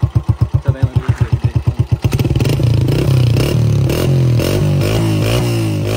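A 2024 Honda CG125's single-cylinder four-stroke engine, breathing through a Goshi aftermarket silencer, idling with evenly spaced exhaust pulses of about eleven a second. About two seconds in, the throttle is blipped: the revs rise and fall several times, then ease back down.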